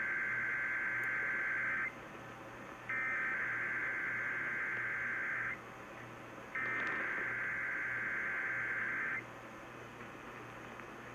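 Emergency Alert System SAME header: three bursts of warbling data tones, each about two and a half seconds long with about a second's gap between them, received over AM radio. This is the header that opens a Required Weekly Test.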